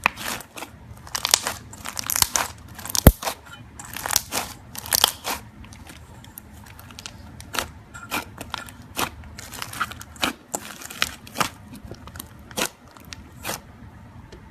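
Slime being squished and stretched, giving irregular sharp pops and clicks, with two denser runs of crackling in the first half.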